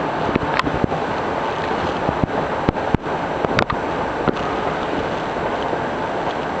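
Metro station escalator-hall ambience: a steady rushing noise, with a few sharp clicks and knocks in the first four seconds.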